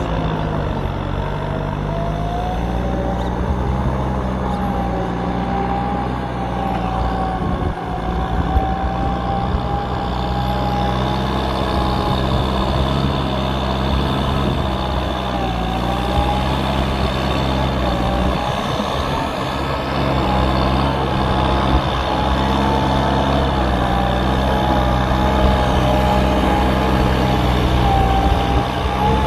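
Kubota M9540 tractor's four-cylinder diesel engine running steadily while the tractor works, with a high whine over the engine drone that wavers slightly in pitch.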